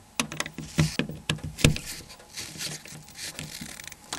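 Irregular sharp clicks and taps from a small torque screwdriver and the plastic parts of a Nokia N95 mobile phone being handled during reassembly.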